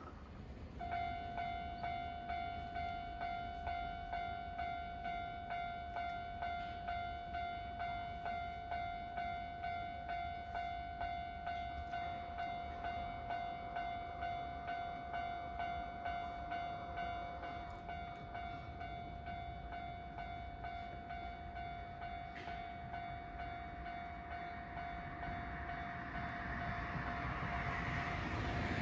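Japanese railway level-crossing alarm switching on about a second in: an electronic bell ringing in a fast, even repeating ding. Near the end an approaching Kintetsu Osaka Line train grows louder as it nears the crossing.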